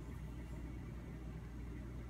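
Steady low background hum and faint hiss: room tone, with no distinct sound.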